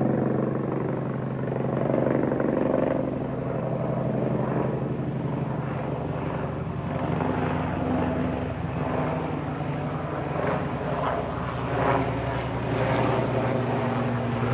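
Sikorsky S-76 twin-turbine helicopter flying overhead on approach to land, a steady engine and rotor drone with a rapid rhythmic chop of the rotor blades coming through more clearly from about halfway in.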